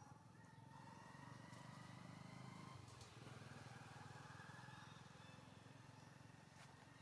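Faint, distant engine drone, swelling about a second in and easing toward the end.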